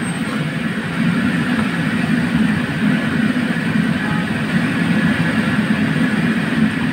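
Crabs deep-frying in a wok of bubbling oil, sizzling steadily over a loud, steady low rumble from the kitchen's gas wok burner and hood.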